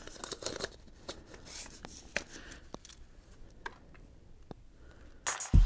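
Faint, irregular light clicks and rustling from a camera being handled up close. About five seconds in, music with a heavy low beat starts.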